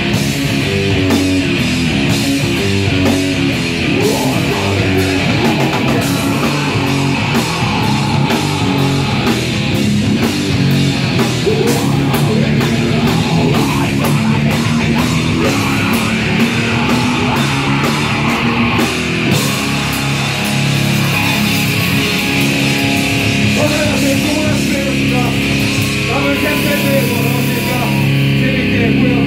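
A heavy rock band playing live and loud: distorted electric guitars and bass, driving drums with cymbals, and a shouted lead vocal. The cymbals drop out just before the end while the guitars ring on.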